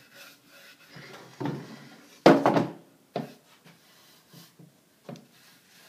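Wooden drawer handled and set down on a wooden tabletop: one loud thunk a little over two seconds in, then a couple of lighter knocks.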